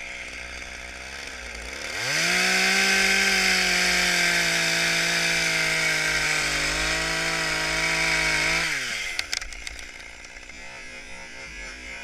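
Gas chainsaw idling, then opened to full throttle about two seconds in and held there at a steady high pitch while it cuts through a tree trunk, then dropping back to idle about nine seconds in, with a few sharp knocks just after.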